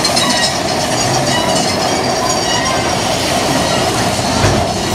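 Big Thunder Mountain Railroad mine-train roller coaster rolling along its track, a steady rattling run with faint wheel squeal. A deeper rumble builds near the end.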